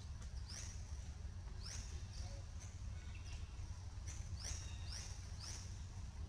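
Repeated short, high-pitched chirps, each sliding down in pitch, from a small animal or bird, over a steady low rumble.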